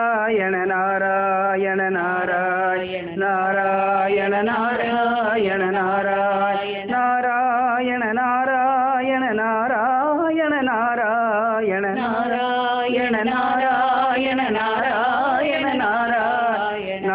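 Devotional namavali singing, a melodic chant of Lord Krishna's names, over a steady drone. The melody bends and wavers with ornaments, with short breaths between phrases.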